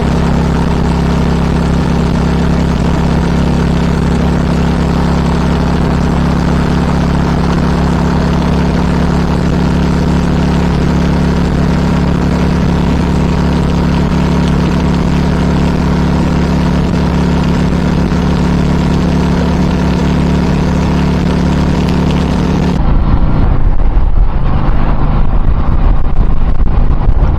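Vehicle engine running at a steady speed, then about 23 seconds in the sound changes suddenly to a louder, rough low rumble, like wind buffeting the microphone.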